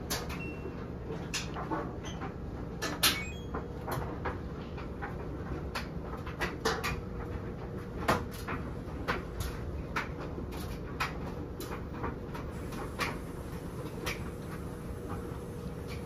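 A laundry machine running with a steady hum, with irregular sharp clicks and knocks throughout.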